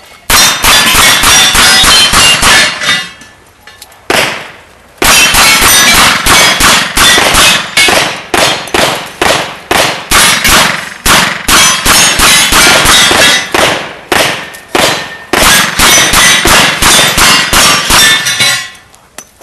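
Open-class revolver firing rapid shots at steel targets, each hit ringing the steel plate. One quick string about three seconds long is followed, after a short pause, by a long run of fast shots and plate clangs.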